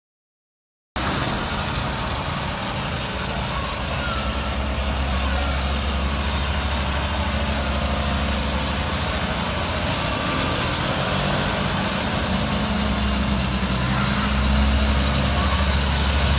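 Fire engine's diesel engine running as the truck creeps forward, under a steady hiss; it starts about a second in and grows a little louder near the end as the truck comes closer. No siren sounds.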